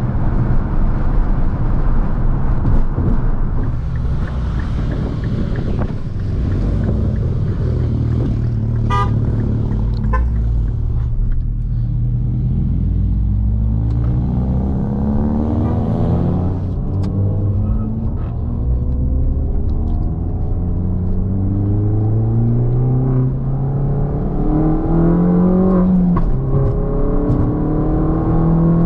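R56 Mini Cooper S's turbocharged 1.6-litre four-cylinder engine, heard from inside the cabin, over road and tyre noise. In the second half the engine pulls up through the revs several times, each climb in pitch broken by a drop at a gear change.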